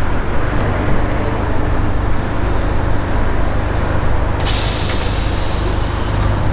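Lisbon number 28 tram running with a steady low rumble. About two-thirds in, a loud hiss of air from its air brakes starts suddenly and carries on.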